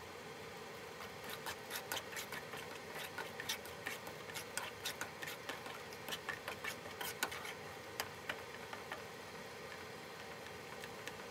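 Wooden spatula stirring a thick red garlic sauce in a pan: irregular light clicks and scrapes of the spatula and sauce over a steady low background noise, thinning out about nine seconds in.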